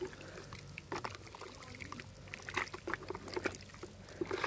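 Plaster and water sloshing and splashing in a plastic bucket as the mix is stirred by hand, in uneven strokes.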